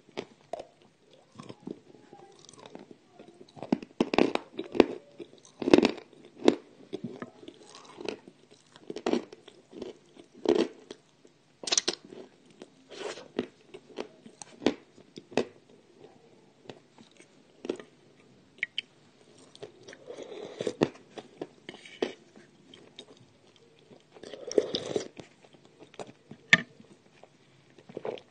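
Close-up biting and chewing of dry edible Ural clay: irregular sharp crunches as pieces break off, with crumbly chewing between them. The loudest bites come a few seconds in.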